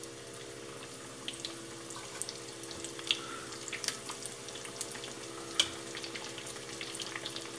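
Breaded ravioli deep-frying in a pot of hot oil: a steady sizzle with scattered sharp crackles and pops.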